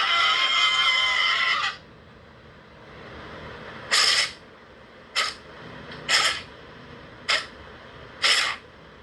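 Monster sound effect: a loud, high, pitched roar that breaks off about two seconds in, then a run of five short sharp bursts about once a second.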